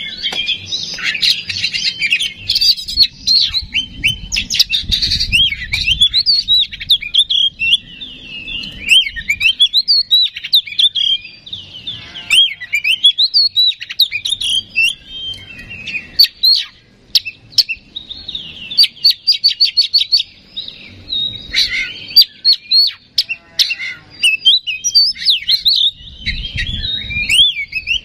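Oriental magpie-robin singing a loud, continuous, varied song of rising and falling whistled notes with quick rapid-fire trills.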